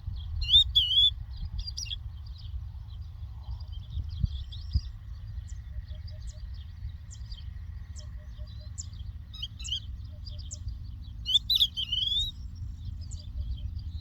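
Lark singing: a run of short chirps and twittering notes, with louder phrases near the start and again about two-thirds of the way through, over a steady low rumble.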